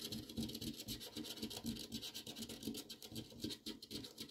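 A coin scraping the coating off a paper scratch-off lottery ticket in quick, repeated short strokes.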